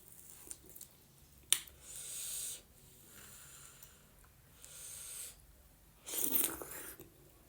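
Breathy mouth sounds of a person eating hot corn dhido: three noisy draws of air, the last one the loudest, with a single sharp click about one and a half seconds in.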